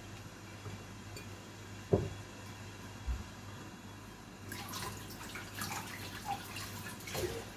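Kitchen work sounds: one sharp knock about two seconds in, a dull thud soon after, then light clinks and clatter in the last few seconds, over a low steady hum.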